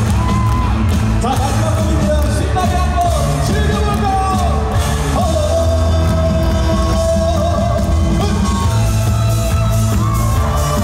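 Live trot song: a male singer's amplified vocal over a loud band backing through the PA. Partway through, a long held note.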